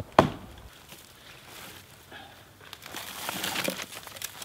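Spruce boughs being broken off a fallen spruce: one sharp crack just after the start, then crackling and rustling of the branches, louder in the last second and a half.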